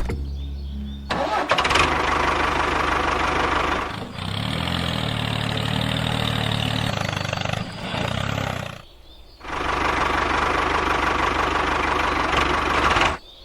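A small motor running with a rough, noisy sound in two long stretches, stopping briefly about nine seconds in; its sound changes slightly about four seconds in, when a low hum joins it.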